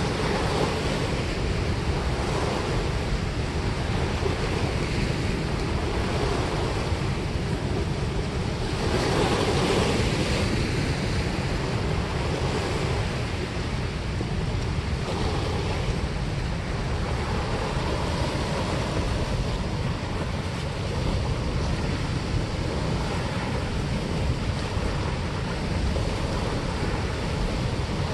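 Water rushing and churning in the outflow below a dam spillway, a steady roar of turbulent water that swells a little about nine seconds in.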